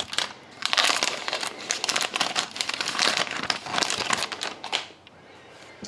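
Crinkling and tearing of a hockey card pack's wrapper as the pack is opened, in several bursts that die away near the end.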